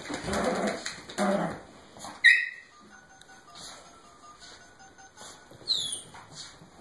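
A Yorkshire terrier puppy playing with a toy, with rough noises in the first second and a half. A pet parrot gives a short loud squawk about two seconds in and a falling whistle near the end.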